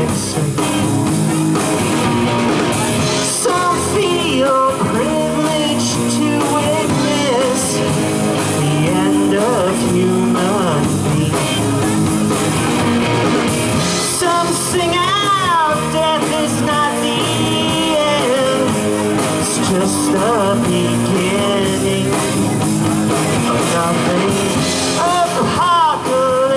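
A live rock band playing: electric guitar, bass guitar and drum kit, amplified through PA speakers, with bending guitar notes standing out in places.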